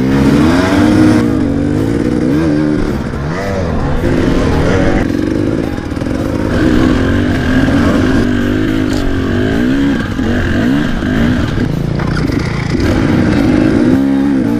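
KTM enduro motorcycle engine revving up and down while the bike is ridden over a rough, rocky trail, its pitch rising and falling again and again.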